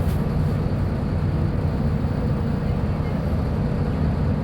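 Mercedes-Benz O500U city bus's diesel engine running with a steady low rumble.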